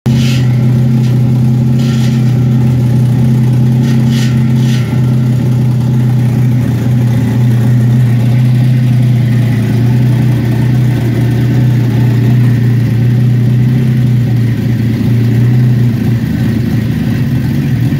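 Turbocharged Toyota 2JZ-GE straight-six engine running steadily. Short hisses come three times in the first four seconds.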